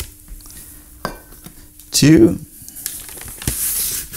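A measuring cup scooping flour from a paper flour bag: the bag rustles and the cup clicks and scrapes as the flour is dug out and levelled. A brief louder sound with a falling pitch comes about two seconds in.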